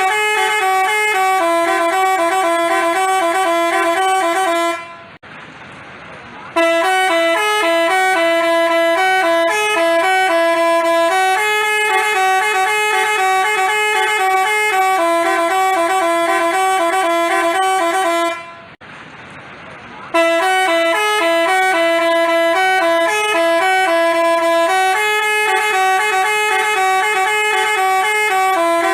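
Multi-tone 'telolet' basuri horn playing a stepping, tune-like sequence of notes. It breaks off twice for about a second and a half, leaving only faint background noise.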